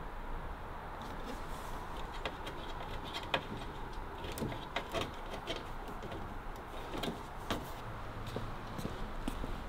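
Scattered light clicks and small knocks of hands working wires and connectors, over a faint steady hiss.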